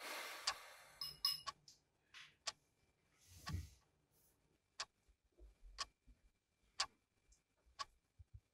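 Faint clock ticking about once a second, with a short rush of noise at the start and a low thump about three and a half seconds in.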